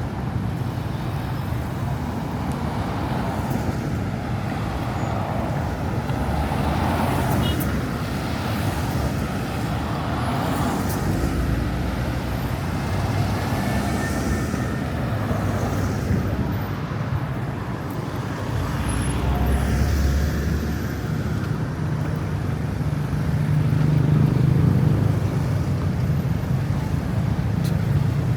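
City street traffic: a steady rumble of car and bus engines and tyres, swelling as vehicles pass close about two-thirds of the way in and again near the end.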